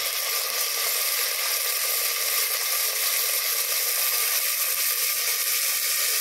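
Onions, potatoes and just-added tomatoes sizzling in hot oil in an aluminium pressure cooker, a steady, even hiss.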